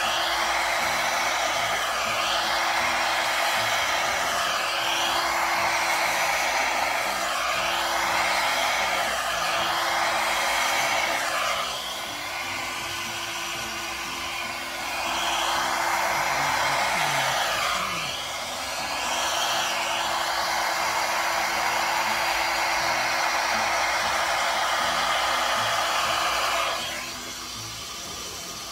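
Small hair dryer running on high, a steady rush of blown air whose pitch shifts as it is moved about over wet acrylic paint. It dips in level twice midway and switches off near the end.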